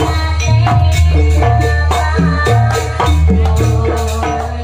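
Jaranan gamelan ensemble playing a Banyuwangi-style gending: kendang barrel drum strokes and struck pot gongs and metallophones in a quick, even rhythm over a deep steady low note.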